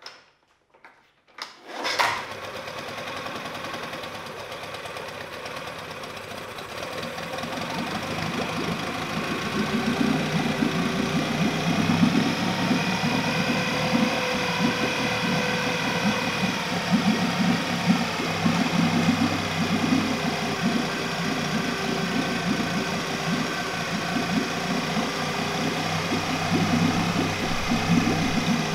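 Late-1980s Yamaha 9.9 hp four-stroke twin-cylinder outboard starting on the pull cord about two seconds in and then running steadily, growing louder over the next several seconds, with its lower unit in a test barrel of water.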